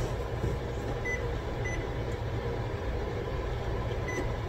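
Kitchen range's electronic control panel beeping three short times as its buttons are pressed to set the oven for five more minutes, over a steady low hum.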